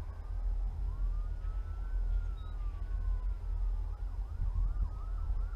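Emergency vehicle siren wailing in slow rising and falling sweeps, switching to a fast yelp about four seconds in, over a steady low rumble.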